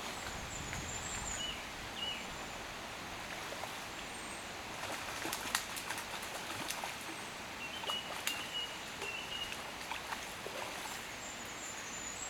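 A hooked trout splashing and thrashing at the surface of a shallow river as it is played on a fly rod, in short sharp splashes that come thickest around the middle, over a steady outdoor hiss with a few short high chirps.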